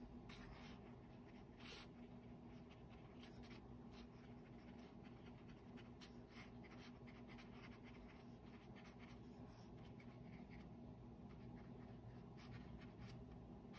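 Faint, irregular soft taps and scratches of a thin paintbrush dabbing ink dots onto paper, several a second, over a steady low room hum.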